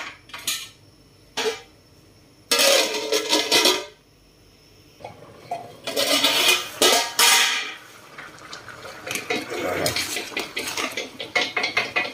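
A metal ladle and lid clattering and scraping against an aluminium cooking pot: a few sharp clinks, two longer noisy scraping stretches, then from about eight seconds in a quick run of scrapes and clinks as the cooked rice is stirred with the ladle.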